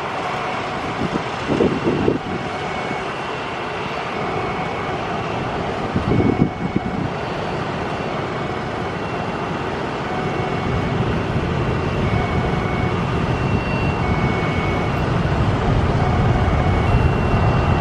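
Boeing 737 twin jet engines running as the airliner rolls on the runway. The engine noise grows steadily louder and deeper from about ten seconds in as thrust builds for takeoff. There are two brief low bumps, near the start and about six seconds in, and a repeated short high chirping in the background.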